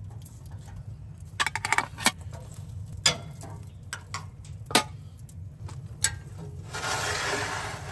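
Steel tongs clicking and meat and vegetables knocking onto a steel smoker grate: a handful of sharp separate clacks. Near the end comes about two seconds of scraping noise.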